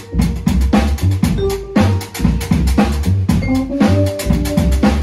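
Live instrumental music: a vibraphone played with mallets in short, quick notes over a driving drum beat and a deep pulsing bass from keyboards.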